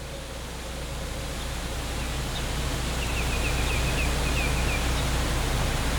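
The dam failure warning siren's steady tone fades out within the first second. It leaves a steady rushing noise with a low rumble that slowly grows louder, and a quick run of short high chirps around the middle.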